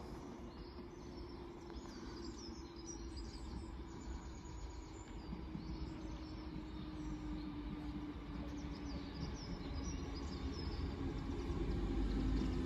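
Merseyrail Class 507 electric multiple unit approaching, its running noise and a steady hum growing louder as it nears. Birds chirp throughout most of it.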